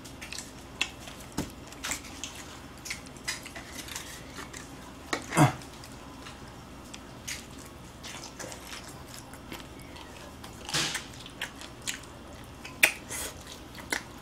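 Fried chicken drumsticks being bitten and chewed close to the microphone: scattered short crunches and mouth smacks, the loudest about five seconds in.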